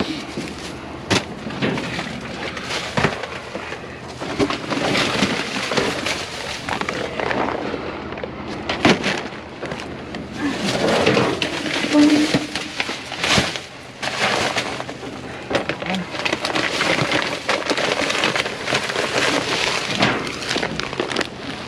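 Rummaging through discarded packages in a dumpster: plastic bags and wrappers crinkling and rustling, with frequent sharp knocks and clatter as items are handled and moved.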